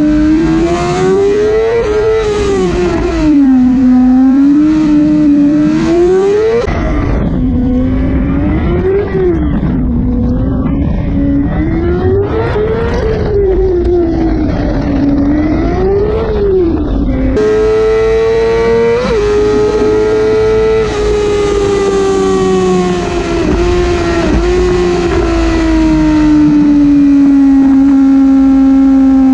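Yamaha YZF-R6 600cc inline-four engine through an Akrapovic exhaust, heard onboard at racing speed. The revs climb and drop over and over through gearshifts and corners, then hold high on a long pull, slowly easing off near the end.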